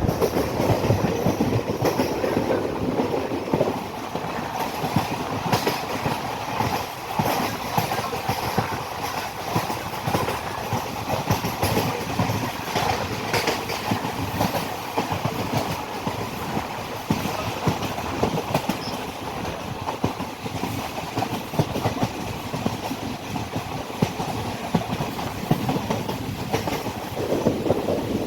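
Passenger train running along the track, its wheels clicking over the rails amid a steady rattle and rumble.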